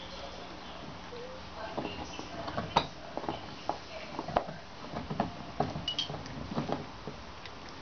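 Two-and-a-half-week-old puppies scrambling and playing on a fleece blanket: irregular soft scuffles and knocks, two sharper ones about three and four and a half seconds in, with a few brief faint squeaks near the end.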